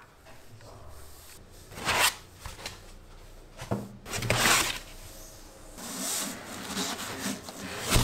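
Printer parts being lifted out of foam packing in a cardboard box: foam and cardboard rubbing and scraping in a few brief bursts, loudest a little over four seconds in, with a quieter low rumbling of handling near the end.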